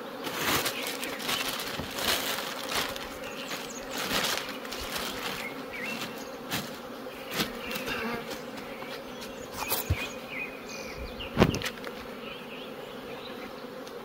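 Honeybees buzzing steadily around an opened hive, with intermittent rustling and knocks as the frames are covered with a plastic sheet.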